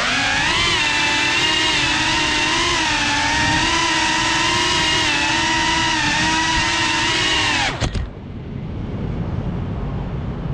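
GEPRC CineLog 35 cinewhoop's brushless motors and 3.5-inch propellers whining, the pitch rising and falling together with the throttle. About eight seconds in the whine drops sharply and cuts off as the drone settles and the motors stop, leaving a low background rumble.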